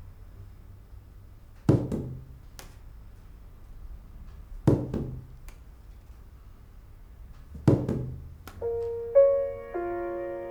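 Three heavy thuds, evenly spaced about three seconds apart, each followed by a lighter knock, over a low hum. About eight and a half seconds in, held keyboard chords begin and build.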